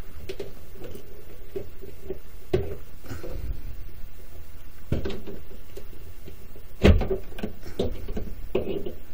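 A few knocks and clicks of a plastic plug being worked loose and pulled out of a power inverter's AC outlet, the sharpest about seven seconds in.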